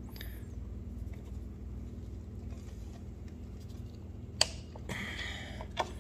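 Steel wrist-pin circlip being worked into its groove in an aluminium piston, with faint scraping, then a single sharp metallic click about four and a half seconds in as it snaps into place. A few softer clicks follow near the end, over a steady low hum.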